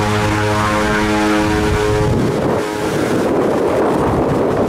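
Cessna Grand Caravan's single PT6 turboprop running on the runway with a steady propeller drone. About two seconds in, the drone gives way to a loud rushing noise with wind buffeting the microphone.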